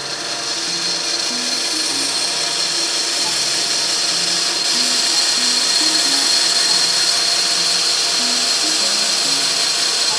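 Bandsaw running and cutting through a wooden board, a steady high hiss that swells over the first couple of seconds as the blade takes the cut. Background music with a short repeating melodic figure plays under it.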